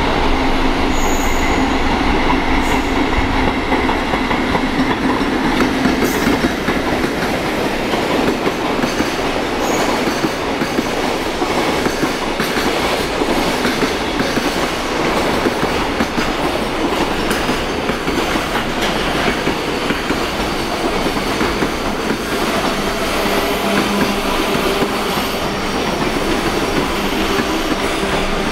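Freight train passing through without stopping: a loud, unbroken run of wagon wheels rumbling and clattering over the rails, with a few faint steady tones in it.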